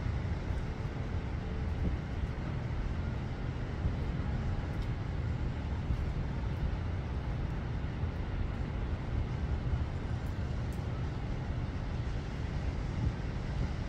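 Wind buffeting the microphone in a steady low rumble, over the even hiss of heavy rain during a storm.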